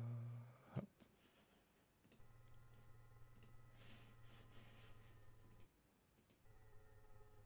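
Faint steady synthesizer drone from simple oscillators in a MaxMSP patch driven by Iannix: a low hum with a few higher held tones, coming in about two seconds in, dropping out briefly near the end and coming back. It opens with a louder low hum fading away and a sharp click, with scattered small clicks throughout.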